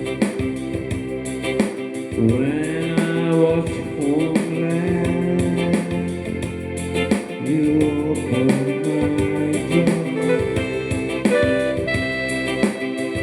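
A voice singing a slow, gospel-style melody over electronic keyboard accompaniment with organ-like chords and a steady beat; the voice comes in about two seconds in and drops out near the end, leaving the keyboard.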